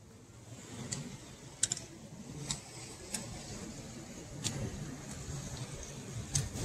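A hiker's footsteps on a road: a low, uneven scuffing rumble with about six sharp clicks, roughly a second apart.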